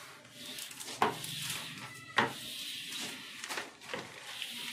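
Plastic squeegee rubbing and scraping across self-adhesive vinyl sheet on a counter slab, pressing the sheet flat in strokes, with three sharp clicks.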